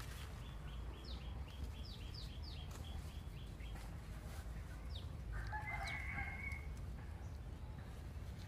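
Chickens: quick, high, repeated chirping calls in the first few seconds, then a rooster crowing once about five seconds in, over a steady low rumble.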